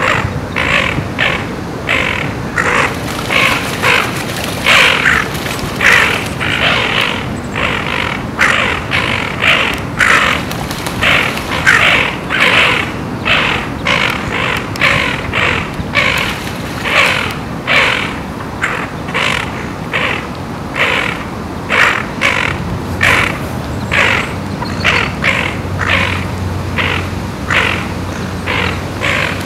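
Mallard hen quacking over and over in alarm, about two harsh quacks a second without a break, as a heron takes one of her ducklings.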